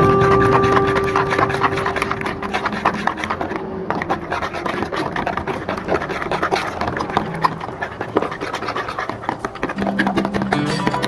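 Wire whisk beating eggs in a plastic bowl: a fast, continuous run of ticks and scrapes as the wires strike the bowl and churn the egg. Background music fades out in the first few seconds and comes back near the end.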